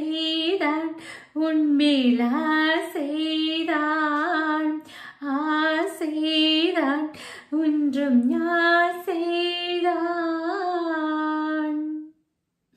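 A woman singing solo and unaccompanied, with long held notes and melodic turns. The singing stops near the end.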